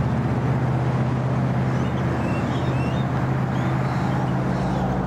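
Steady, loud low engine hum of airport machinery and aircraft, a constant drone with a few faint high chirps near the middle.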